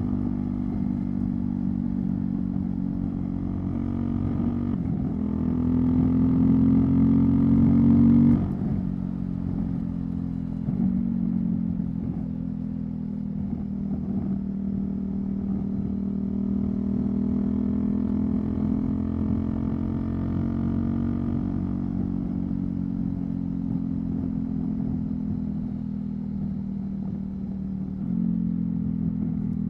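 Husqvarna Svartpilen 401's single-cylinder engine through a LeoVince LV-10 exhaust, under way. It climbs in pitch for a few seconds, drops sharply about eight seconds in, then settles into a steady cruise with slow rises and falls in pitch.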